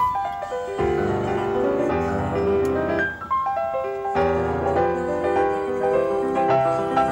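Instrumental background music led by piano: held notes and chords, with short breaks between phrases.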